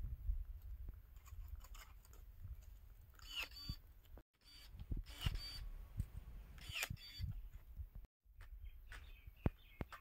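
Handling noise on a handheld camera's microphone: a low rumble with scattered clicks and knocks, broken by a couple of short high chirps.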